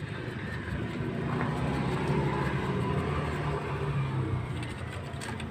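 A steady low engine drone that swells through the middle and eases off again, with faint scrubbing of a toothbrush on a small rusty starter motor.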